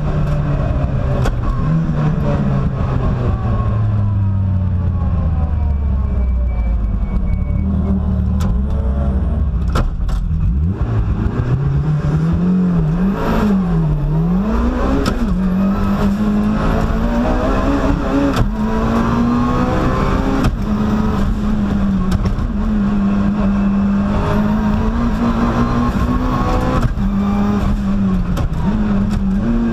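Mitsubishi Lancer Evolution race car's turbocharged four-cylinder engine, heard inside the cabin while the car is driven hard on a circuit. The engine note falls for several seconds, swings quickly up and down a few times near the middle, then holds high and steady.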